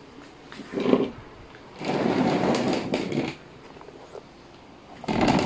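A bicycle pump's nozzle being handled and fitted onto the air valve of a suspension fork: three bursts of rustling, sliding noise, a short one about a second in, a longer one of about a second and a half after that, and another short one near the end.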